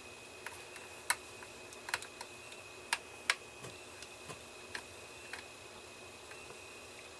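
Small screwdriver turning a tiny screw into a scale model engine's top cover: irregular light clicks and taps of tool, screw and parts, with a few sharper clicks in the first three and a half seconds.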